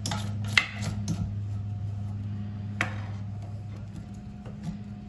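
Small clicks and rattles of a braided stainless-steel water supply line being hand-threaded onto a toilet fill valve's plastic shank: a cluster in the first second, one sharper click about three seconds in, then a few faint ticks, over a steady low hum.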